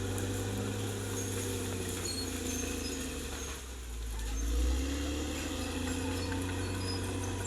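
Caterpillar D6R XL bulldozer's diesel engine running steadily as it works. The engine note dips briefly just past halfway, then swells back up.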